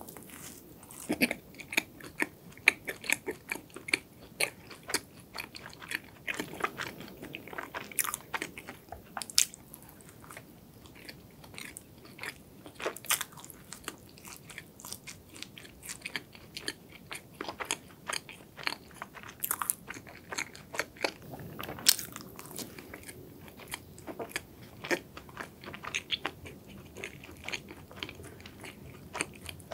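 Close-miked biting and chewing of a chocolate-glazed macadamia-nut donut, with many small, irregular crunches throughout.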